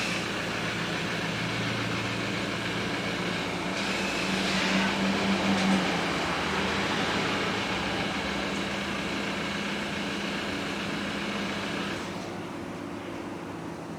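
Car engine running steadily, a little louder about a third of the way in, then cut off near the end.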